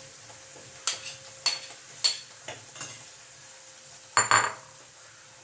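A steel spoon clinking against a nonstick kadai while the curry is stirred: several light clinks in the first three seconds, then a louder clatter of metal on metal a little after four seconds.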